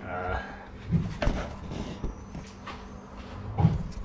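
Close handling of a camera in a kitchen: a few dull knocks and bumps, the loudest near the end, with a short pitched call right at the start.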